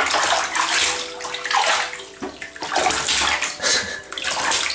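Baby splashing water with his hands in a plastic infant bathtub: a run of separate splashes, about six in all.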